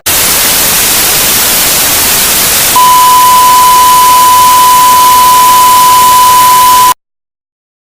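Loud, even static hiss, joined about three seconds in by a steady high-pitched beep tone held over it for about four seconds. Both cut off abruptly together, as in a simulated broadcast interruption.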